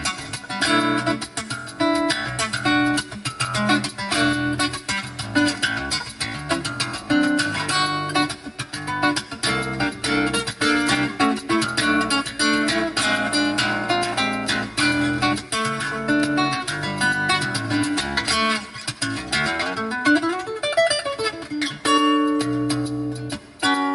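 Acoustic guitar music, plucked and strummed, with a shaker keeping a steady rhythm, played through a custom high-end car audio system.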